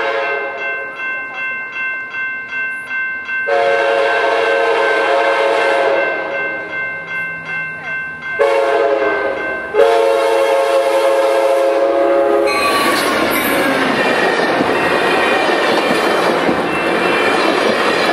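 Grade-crossing warning bells ding steadily, about two strokes a second. A passenger train's locomotive horn then sounds long, short, long as it nears the crossing. The train then rushes past close by in a loud, steady roar of wheels on rail.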